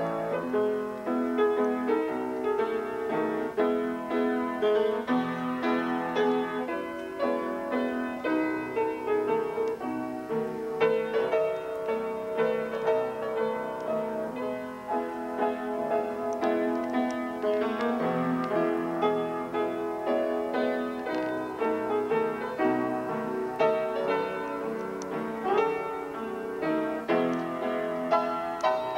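A piano playing a tune, a continuous flow of melody notes over chords.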